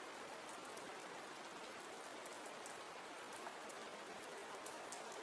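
Soft, steady rain, faint, with scattered light ticks of individual drops.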